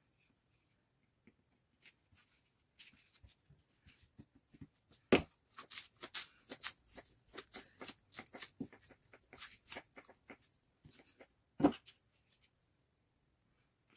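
A roll of cling film, used as a rolling pin, is rolled back and forth over floured dough on a plastic cutting board, giving a quick run of rustling taps and clicks. There are two sharp knocks, one about five seconds in and one near the end.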